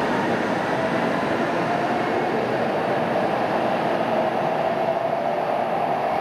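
Kyushu Shinkansen N700-series train pulling out of the station and gathering speed: a steady rushing rumble of the train with a faint whine running through it.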